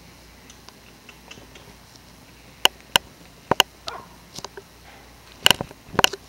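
A litter of newborn puppies making small noises: a run of short, sharp squeaks starting about two and a half seconds in, with the loudest ones in a cluster near the end.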